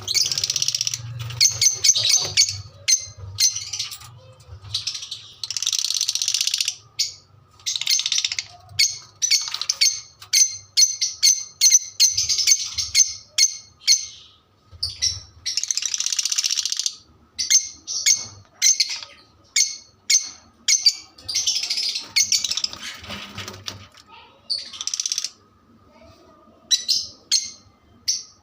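Pet parrot chirping and chattering in rapid strings of short, high chirps, broken several times by longer harsh screeches lasting about a second each.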